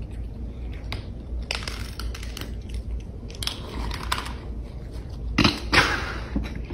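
Cats crunching dry kibble, a run of irregular crunches with the loudest near the end, over a low steady hum.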